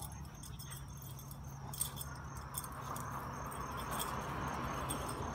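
Dog's collar tags jingling in quick, irregular clinks as the dog pulls and shakes a tug toy.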